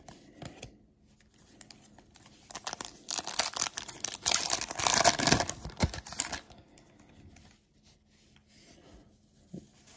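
Glossy trading cards crackling and rustling as they are slid apart and flexed in the hands, a dense crinkly noise from about two and a half seconds in to about six seconds in, with softer card handling before and after.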